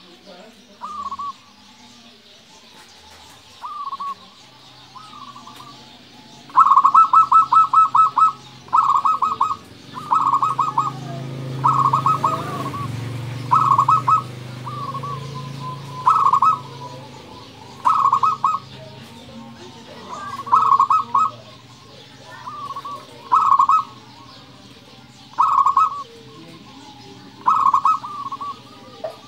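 Zebra dove (perkutut) singing: a string of short, rapid stuttering coo phrases, one every one to two seconds, the longest and loudest a fast rolling run about six seconds in.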